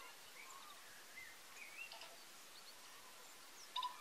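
Faint birdsong over a steady hiss: scattered short whistled chirps that slide up and down in pitch, with a louder quick pair of notes near the end.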